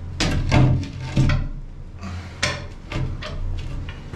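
Heavy rusted steel manhole cover being lowered onto the opening of a concrete sewage tank, giving a handful of separate metallic knocks and scrapes as it settles into its frame, over a steady low hum.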